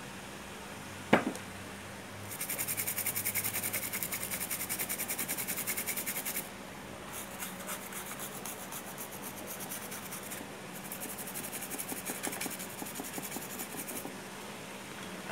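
Rapid back-and-forth scrubbing on a car amplifier's circuit board, rubbing the scorched area around the output transistors, in two spells with a short break about six seconds in. A single sharp click comes about a second in.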